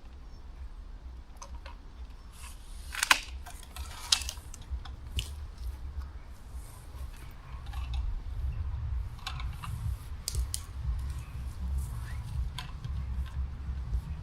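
Manual pole saw working on tree branches: scattered sharp clicks and snaps, the two loudest about three and four seconds in, over a steady low rumble.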